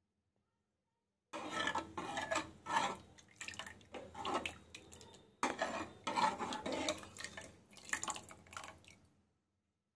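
Metal ladle stirring and scooping thick lentil sambar in a metal pot: scraping against the pot with wet, thick-liquid sloshing. It starts suddenly about a second in, breaks off sharply halfway, and resumes until shortly before the end.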